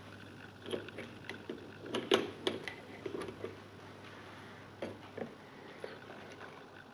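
Faint scattered clicks and light knocks of multimeter test probes and leads being handled, bunched in the first half and a few more later, over a steady low hum.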